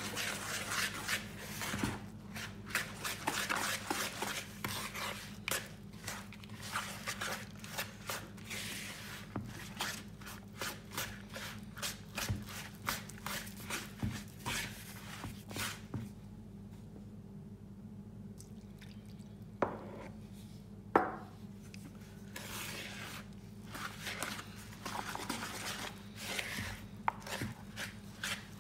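Wooden spoon stirring and scraping a stiff suet dough of flour, dried fruit, egg and milk in a plastic mixing bowl, in repeated quick strokes. The stirring pauses for a few seconds a little past halfway, when two sharp knocks sound, the second the loudest.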